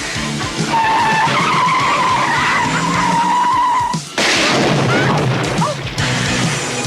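Car tyres squealing in one long held screech, cutting off abruptly about four seconds in to a rougher stretch of tyre and engine noise, over a rock music soundtrack.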